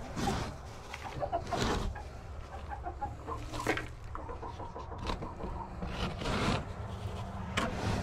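Chickens clucking softly in a coop, with several short, louder scraping sounds in between.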